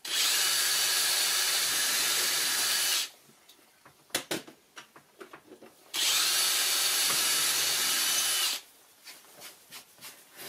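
Cordless drill running at steady speed into a wooden board in two runs of about three seconds each, the second spinning up with a short rising whine, with a few sharp knocks in the pause between.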